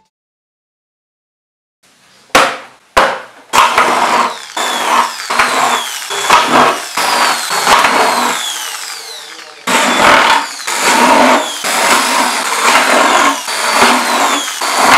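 Power drill boring holes through a thin plastic drink bottle. After about two seconds of silence come two sharp clicks, then the drill runs in repeated short bursts as the bit chews through the plastic, each burst dying away with a falling whine.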